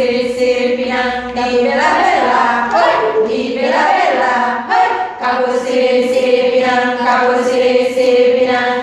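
A small women's choir singing a cappella, holding long, steady notes, with a gliding, moving passage about two seconds in before settling back onto held notes.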